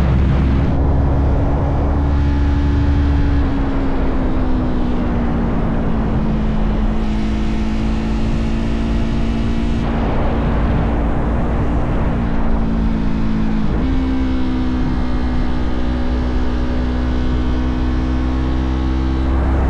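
Motorcycle engine running at a steady cruise under road and wind noise; its note eases slightly lower a few seconds in, then dips briefly and settles higher about two-thirds of the way through. A louder rush of noise comes in for a few seconds in the middle.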